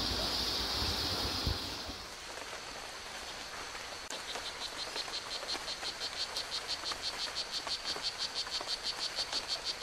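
A steady high-pitched hiss fades after about two seconds. From about four seconds in, a rhythmic chirping chorus of frogs or crickets pulses at about five times a second and slowly grows louder.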